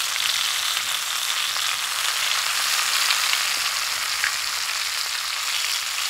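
Aburazemi cicadas coated in karaage flour deep-frying in hot oil: a steady, dense sizzle and crackle with a few small pops.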